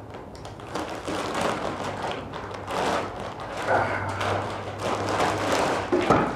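Crinkling and rustling of a clear plastic poly bag as a pair of jeans is worked loose and pulled out of it, with a sharp thud near the end as the jeans land on the wooden table.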